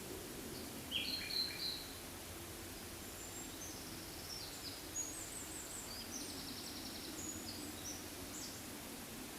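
Small birds chirping in a forest: a loud cluster of chirps about a second in, then a run of short, high chirps and trills, over a steady low background noise.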